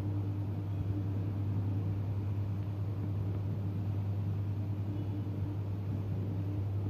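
A steady low hum.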